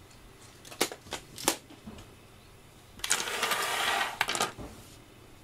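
A few sharp clicks and knocks from objects being handled, then a rustle lasting about a second and a half, with more clicks as it ends.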